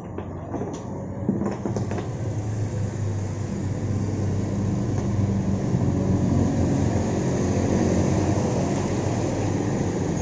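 An engine or motor running steadily and growing gradually louder. In the first two seconds come a few light clicks of wooden blocks being set in place.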